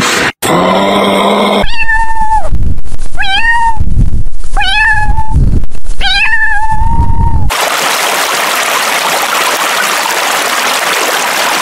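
A domestic tabby cat meows four times, each call rising at its start, the last drawn out the longest. A short low grunting call comes before the meows, and a steady watery hiss follows them.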